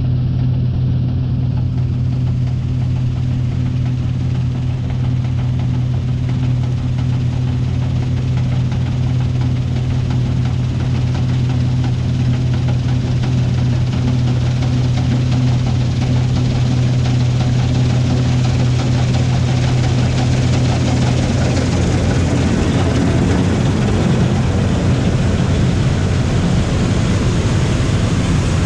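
Heavy farm diesel engine running steadily with a strong low hum; from about 20 seconds in a broader rushing noise builds on top of it.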